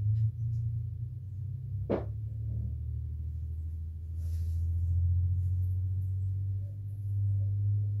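A steady low hum that swells and eases slightly, with one sharp click about two seconds in.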